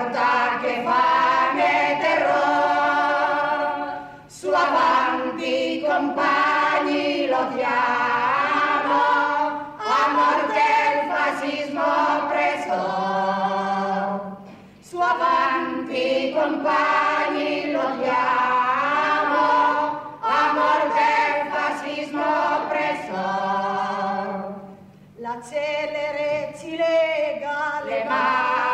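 Several voices singing together without instruments, in phrases of four to five seconds with short breaks between them.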